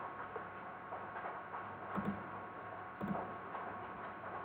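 A computer mouse clicking twice, about two and three seconds in, over a low steady hiss.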